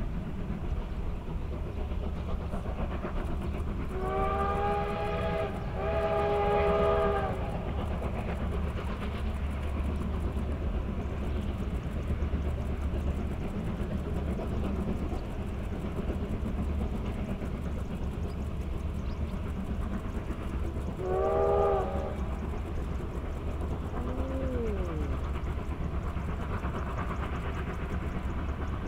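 Steam locomotive whistle sounding two long blasts about four seconds in and one short blast later on, over the steady low rumble of the train running along the line.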